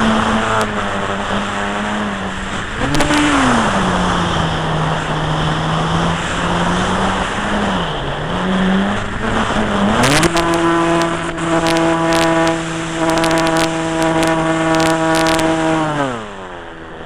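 Electric model airplane's motor and propeller whining over a steady wind rush, heard from the onboard camera. The pitch dips and rises a few times, jumps sharply higher and louder about ten seconds in with some scattered clicks, then winds down and fades near the end.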